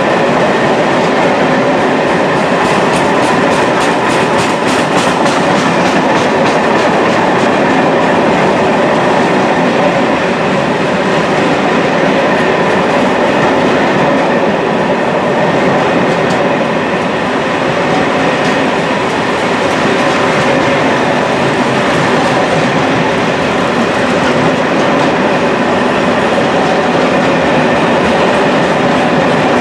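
Freight train of tank wagons and flat wagons rolling past: a steady noise of wheels on rail, with steady ringing tones above it.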